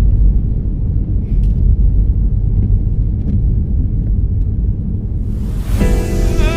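Steady low rumble of a car driving through snow, heard from inside the cabin, with a few faint clicks. Music with held tones comes in near the end.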